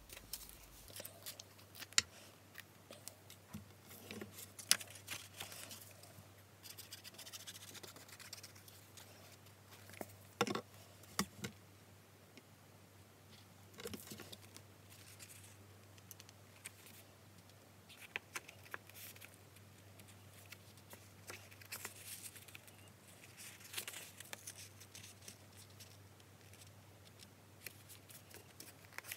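Faint handling of card stock: scattered rustles, light taps and clicks as a printed paper panel is picked up, turned over and pressed down for gluing.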